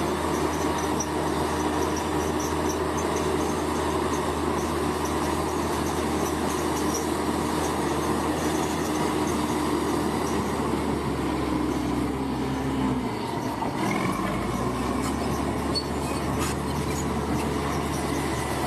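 Large crawler bulldozer's diesel engine running steadily under load, with the clatter of its steel tracks. Its engine note dips briefly about two-thirds of the way through, then picks back up.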